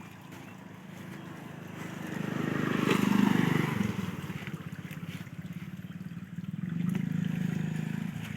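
A small engine running with a rapid low pulsing beat, swelling louder about three seconds in and again near seven seconds.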